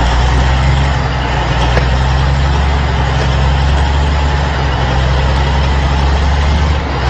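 A heavy engine running steadily at a constant speed: a loud, even low hum with a noisy rumble above it.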